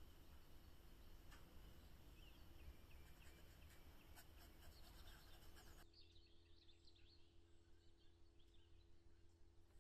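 Very faint small-bird chirping in the background, with a soft scratchy hiss and a few light clicks that cut off abruptly about six seconds in.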